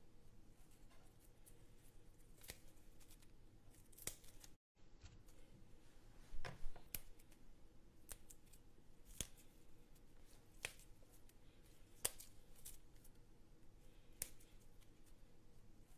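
Faint, scattered sharp clicks, roughly one every second or two, over quiet room tone, with a louder cluster of clicks about halfway through.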